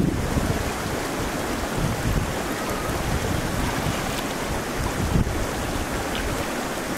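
Shallow river water running over stones, with splashing as hands and feet move through the water. Wind buffets the microphone now and then.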